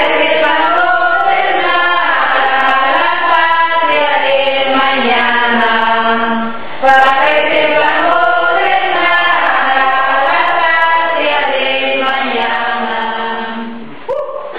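Choir singing a slow, chant-like song in long held notes, with a brief pause about six and a half seconds in, fading out near the end.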